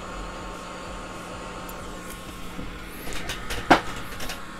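Steady whir of a repair bench's fan-driven equipment. From about three seconds in come a few sharp clicks of small tools being handled, the loudest just before the end.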